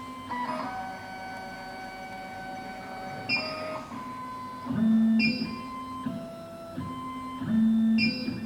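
SEC-E9 key cutting machine's stepper motors moving the axes through the automatic clamp calibration: steady whining tones that jump from pitch to pitch every second or so. The tones are louder and lower about five and about eight seconds in.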